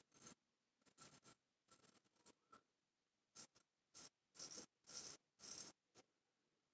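Large straight razor scraping through lather and stubble on the chin in about ten short touch-up strokes, with brief pauses between them.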